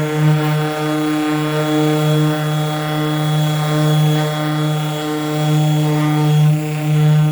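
Power sander's motor running steadily on 800-grit paper, sanding down automotive clear coat. It makes a constant, even hum that wavers slightly in loudness.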